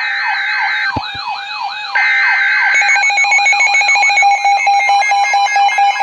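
Several Midland NOAA weather alert radios going off together as an alert comes in: a fast repeating siren-like sweep about three times a second over a steady tone. Short bursts of buzzing data tones from the alert's digital header come through at the start and again about two seconds in. From about three seconds in another radio adds rapid stepped beeping and the whole sound gets louder, with two light knocks about a second in.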